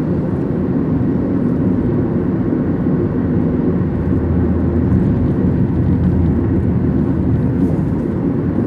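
Steady road and engine noise of a car cruising on a highway, heard from inside the cabin as an even low rumble.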